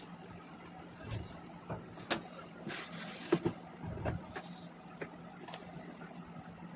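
Scattered light knocks and clicks from hand work on a washing machine, with a short rustling hiss about three seconds in, over a steady low hum.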